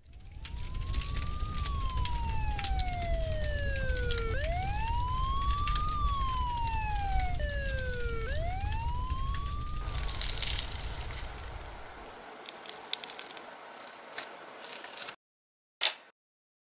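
Emergency vehicle siren wailing over a low rumble and scattered crackling, each cycle rising quickly and falling slowly, about three times. At about ten seconds the siren stops and the crackling hiss fades away, cutting off suddenly, with a single click near the end.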